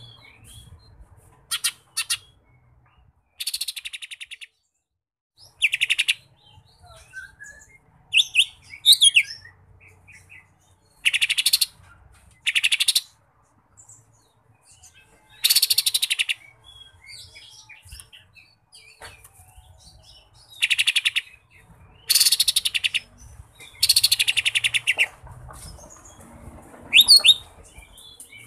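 Male lesser green leafbird (cucak ijo mini) singing: loud, high-pitched phrases, many of them fast chattering trills, delivered in about a dozen short bursts with pauses between.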